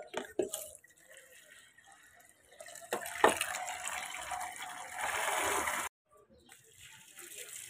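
Water rushing into a white plastic mug as it fills, with a knock of the mug about three seconds in; the rush cuts off suddenly, and near the end a fainter splash of water is poured from the mug onto the soil of a potted mint plant.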